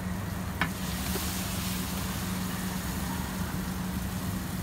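Batter sizzling on a hot flat iron griddle, the hiss swelling for a second or two just after a single sharp clink about half a second in, over a steady low hum.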